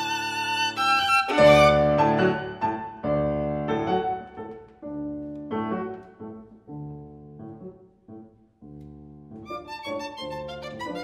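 Slow instrumental background music with notes held about a second each; it dies away almost to silence about eight seconds in, then picks up again.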